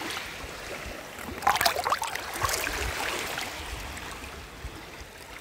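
Shallow seawater lapping over a pebble shore, with a short burst of splashing and trickling about a second and a half in, and a low wind rumble on the microphone.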